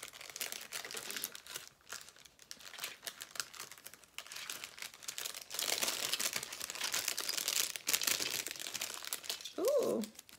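Clear plastic packaging bag crinkling and rustling as it is handled and opened, busiest about halfway through. A brief vocal sound comes near the end.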